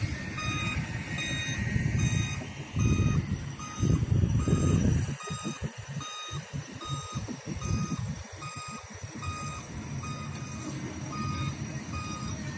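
Kobelco hydraulic excavator's diesel engine running with a low rumble that swells twice in the first five seconds. Over it, the machine's travel alarm beeps evenly, a little under two beeps a second.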